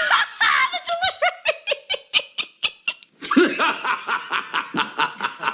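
Hearty laughter: a run of rapid, rhythmic ha-ha pulses that fall in pitch over the first three seconds, then a brief pause and a second burst of laughing.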